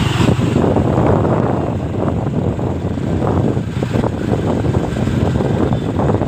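Motorcycle running steadily on the move, with wind rumbling on the microphone.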